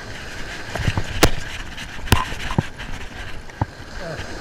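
Surf washing on the beach and wind on the microphone, broken by about five sharp clicks and knocks from handling a surf rod and its reel.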